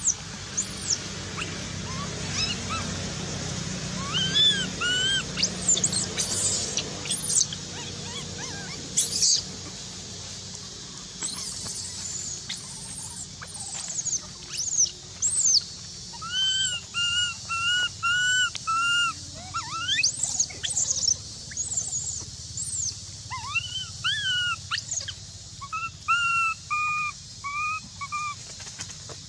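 Baby macaque crying: a run of short, high whimpering calls, each rising then falling, coming about one to two a second through the second half, with shriller squeaks scattered through the first half.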